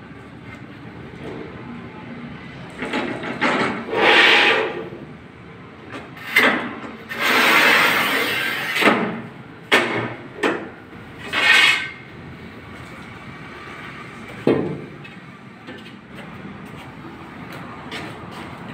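A QEP 50-inch manual rail tile cutter scoring a large ceramic tile: its scoring wheel scrapes across the glaze in several noisy strokes, the longest about two seconds, with clacks and knocks from the handle and rail. A single sharp crack comes about three quarters of the way through, as the tile snaps along the score.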